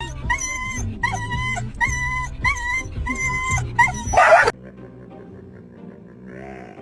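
A dog's high whining yips, about six of them in an even rhythm, over music with a low bass line. A short loud rush of noise comes just after four seconds, then it drops quieter.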